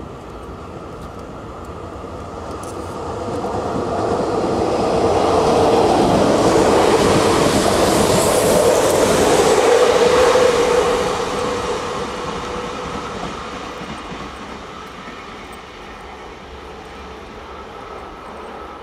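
A Régio 2N double-deck electric multiple unit passing at speed. Wheel and rail noise with a steady hum builds over several seconds, is loudest as the train goes by in the middle, and then fades away.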